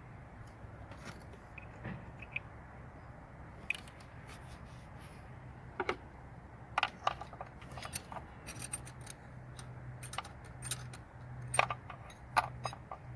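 Metal tools and parts clinking and clicking as they are handled, in scattered short knocks, some ringing briefly, over a faint low hum.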